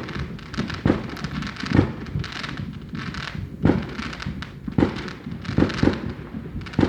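Aerial fireworks bursting: a string of deep booms at irregular intervals, with crackling between them.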